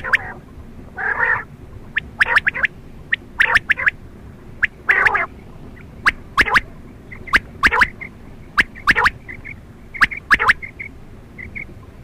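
Quail calling over and over. Each call is a cluster of two to four sharp, clicky notes, sometimes with a short buzzy note, and the calls repeat about every second and a half.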